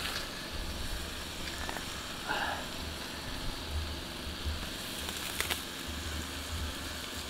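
Mud crab sizzling in a wok over a camp stove: a steady frying hiss with a few faint crackles, while wind rumbles on the microphone.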